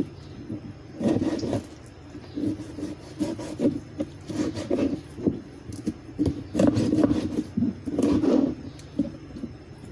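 A kitchen knife sawing back and forth through raw meat and knocking against a cutting board, in several short bursts of strokes with brief pauses between.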